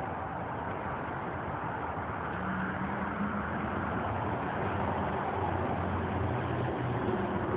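Steady road traffic noise, with a vehicle engine's low hum coming in partway through and the whole getting a little louder toward the end.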